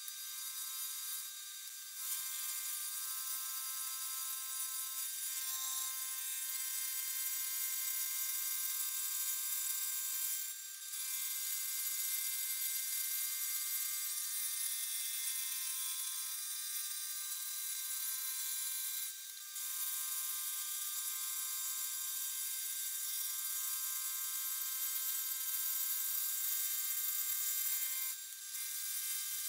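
Milling machine side-milling a lathe cross slide with a half-inch four-flute carbide end mill: a steady high whine of spindle and cut, made of several steady tones, that drops out briefly three times.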